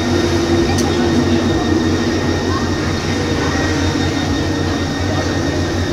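Steady, loud machine rumble with a constant faint hum, under faint murmur of voices.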